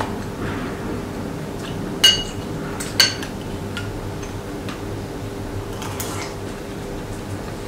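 Metal spoon and chopsticks clinking against ceramic bowls and dishes during a meal: two sharp clinks about a second apart, with a few lighter ticks, over a faint steady hum.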